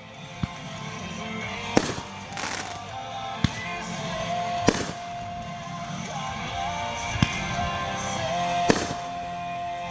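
Consumer fireworks going off: about six sharp bangs a second or two apart, over background music.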